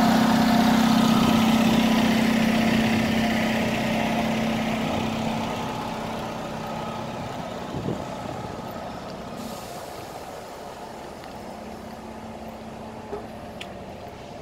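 Parked bus running at idle: a steady mechanical hum that fades over the first half as it grows more distant, with a couple of faint clicks later on.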